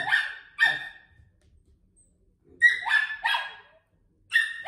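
Small dog barking in short, sharp, high barks: two near the start, three in quick succession about two and a half seconds in, and one more near the end.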